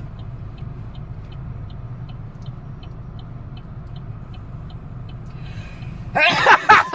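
Steady car-cabin road and engine rumble, with a faint regular ticking about five times every two seconds. Near the end, an elderly woman sneezes loudly.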